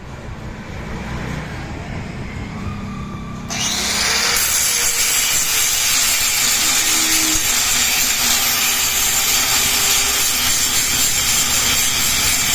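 Grinder cutting into metal: a loud, steady hiss that starts suddenly about three and a half seconds in, after a quieter start, as the weld on a motorcycle gear lever is ground away.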